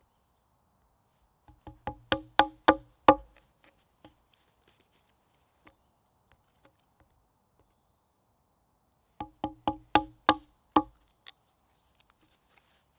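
Hatchet with a small rhododendron stick on its blade knocked down against a log to split the stick: two quick runs of about seven woody knocks, about four a second, the first about a second and a half in and the second about nine seconds in.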